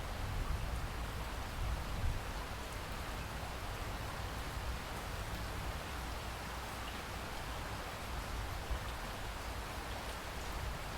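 Steady rain falling, with a low rumble underneath that is a little stronger in the first couple of seconds.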